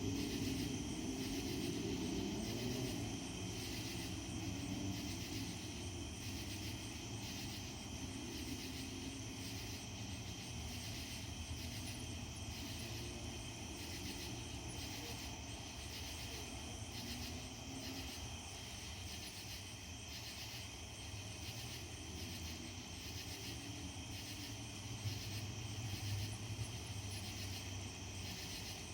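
A low, continuous rumble from the sky, of unexplained source, with a pitch that wavers in the first few seconds; it is not an aircraft. A steady high-pitched hum pulses about once a second above it.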